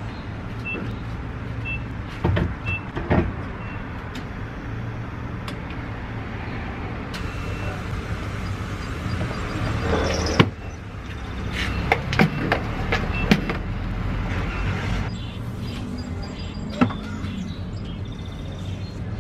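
Refuelling a car at a gas station pump: a few short beeps from the pump early on, then clicks and knocks from handling the nozzle and the car door. A rushing hiss of fuel builds and stops with a sharp click about ten seconds in, over a steady low hum of engines.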